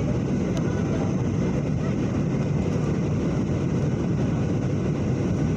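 A steady low rumble with no clear beat or pitch.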